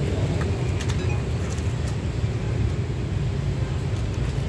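Steady low engine rumble, with a few faint clicks over it.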